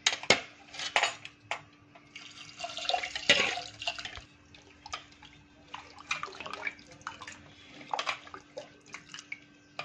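Water being mixed into a metal pot of mashed dal and greens with a ladle: irregular sloshing and splashing of liquid, with short knocks and scrapes of the ladle against the pot.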